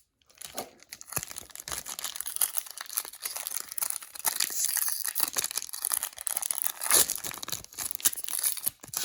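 A foil Pokémon booster pack wrapper being torn open and crinkled, a dense crackling rip with a sharp loud tear near the end.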